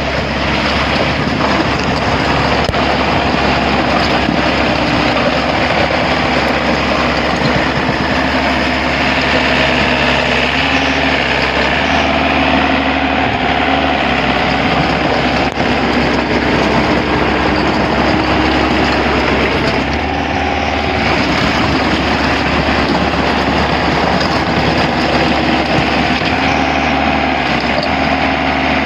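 A vehicle engine running steadily and continuously, its pitch shifting a little now and then.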